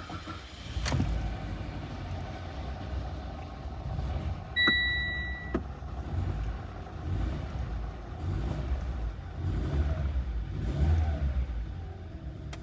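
Mitsubishi 4A92 1.6-litre four-cylinder engine starting for the first time after a rebuild: it catches about a second in and then idles. An electronic beep sounds for about a second about a third of the way through. The engine runs smoothly and quietly, with no piston knock.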